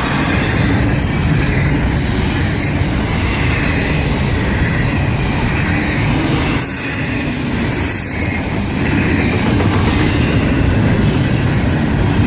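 Freight train of empty double-stack container cars rolling past: a steady, loud rumble of steel wheels on rail.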